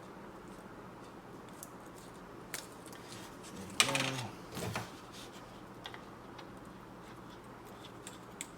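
Small clicks and rustles of hands working a metal quick-disconnect fitting while wrapping thread seal tape around its threads, with one brief louder squeak about four seconds in and a short scrape right after.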